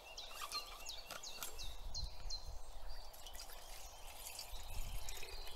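A small songbird calling: a run of short, high whistled notes, each falling in pitch and repeated about twice a second, over a steady low background noise.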